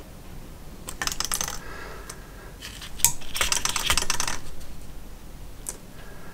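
Light, rapid clicking and rattling of small parts being handled on a bank of four motorcycle carburettors, in two quick flurries about a second and three seconds in, with a last single click near the end.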